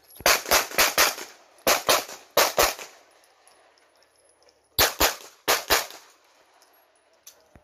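Semi-automatic pistol fired in rapid strings, about twelve sharp shots. A run of four comes first, then quick pairs (double taps) on successive targets. There is a pause of about two seconds in the middle as the shooter moves to a new position.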